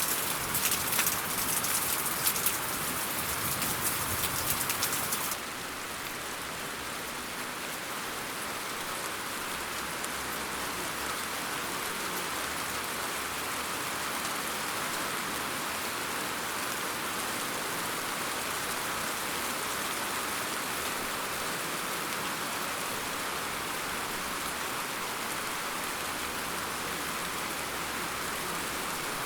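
Rain falling steadily. For the first five seconds it is louder, with many sharp close drop impacts, then it changes abruptly to a softer, even hiss of rain.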